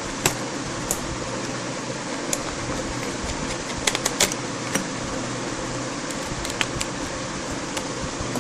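Small scattered clicks and ticks of a screwdriver working a small screw out of a laptop's screen bezel, over a steady room hum.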